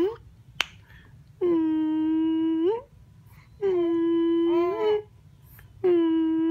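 Infant making long drawn-out cooing 'aah' sounds, about three in a row, each held at one steady high pitch for a second or so and lifting at the end, with short pauses between them. A sharp click comes about half a second in.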